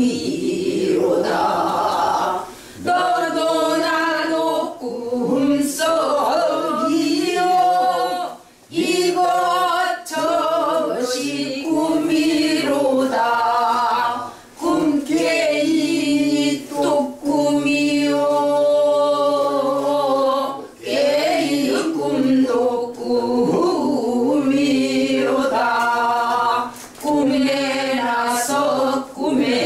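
A mixed group of men and women singing a Korean folk song (Namdo minyo style) together in long phrases, with held notes that waver in pitch and short pauses for breath between phrases.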